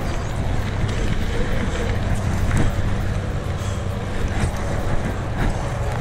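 Steady highway traffic noise, with the rumble of a mountain bike's tyres rolling over a dirt track.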